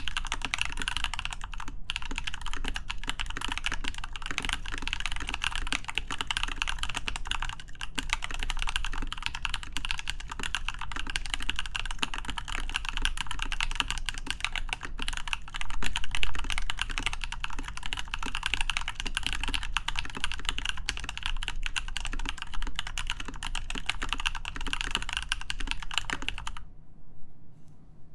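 Continuous fast typing on a Leopold FC660M mechanical keyboard with lubed Lumia switches, a steel plate and PBT doubleshot keycaps: dense, rapid keystrokes that stop abruptly near the end.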